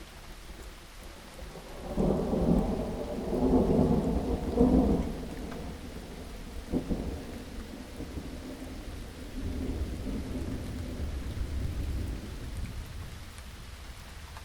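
Steady rain with rolling thunder. A loud rumble starts about two seconds in and lasts about three seconds; a short sharp crack follows, then a fainter rumble later on.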